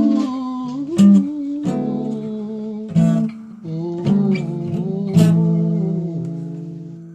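Acoustic guitar playing an instrumental passage between sung lines of a song, chords struck about once a second. The last chord, a little after five seconds in, is left to ring and fades away.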